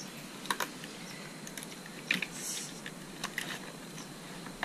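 Scattered sharp plastic clicks and rattles of motorcycle wiring-harness connectors and clips being handled, several in quick pairs, with a short rustle a little past halfway.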